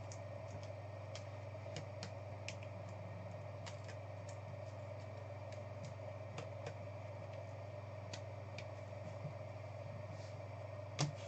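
Steady low electrical hum with scattered faint clicks and ticks, and one sharper click near the end.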